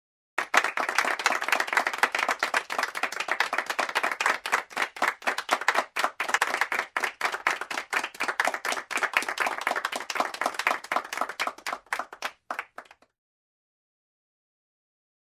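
A group of people clapping: applause that starts abruptly about half a second in, stays dense, then thins to a few scattered claps and stops about thirteen seconds in.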